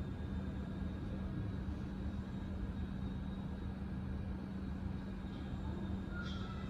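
Steady low running rumble of a moving train, with a faint high, slowly falling squeal near the end.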